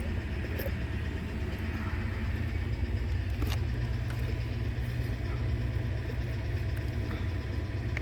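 Steady low rumble of an idling vehicle engine, with a faint click about three and a half seconds in.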